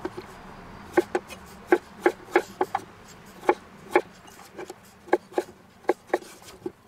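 Chef's knife cutting peeled raw potatoes into fries on a wooden cutting board: irregular knocks of the blade meeting the board, about two a second, starting about a second in.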